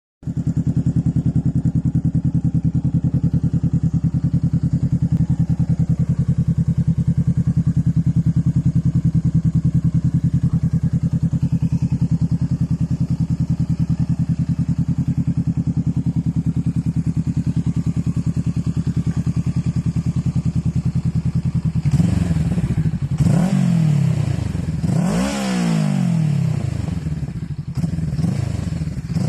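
Honda Rebel 500's parallel-twin engine breathing through a custom DBK exhaust, idling with a steady, even pulse. Near the end it is revved in several quick blips, the pitch rising and falling each time.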